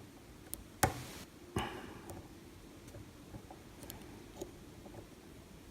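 Lock pick and tension wrench working the pins of an old Ruko oval lock, making faint scattered ticks and clicks, with two louder sharp clicks about a second in.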